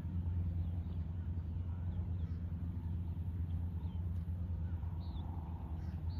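Birds chirping in short, falling calls, several times, over a steady low hum.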